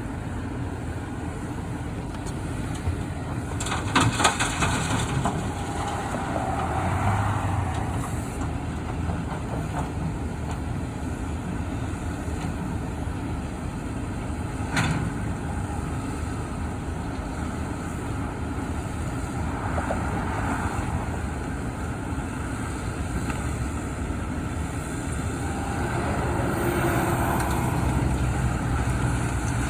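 Heavy diesel construction machinery and trucks running with a steady low rumble. There is a burst of clanking knocks about four seconds in and a single sharp knock about fifteen seconds in.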